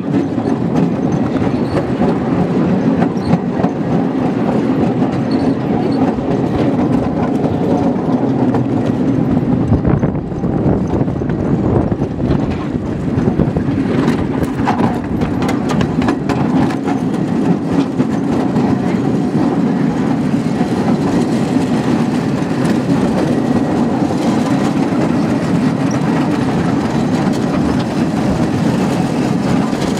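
Quarter-scale miniature railway train rolling along its track, heard from an open riding car: a steady rumble of steel wheels on rail, with a spell of sharper clicks and clacks about halfway through.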